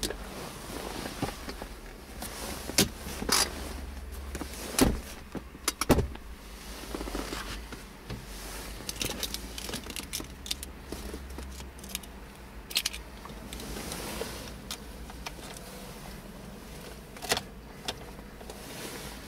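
Clicks and knocks of an Opel Astra's interior being handled: the centre armrest lid moved early on, then the key fob handled with its keys jangling, and near the end the key pushed into the ignition lock.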